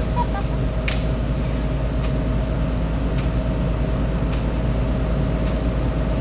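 Chainsaw engine running at a steady speed, with a few sharp ticks now and then.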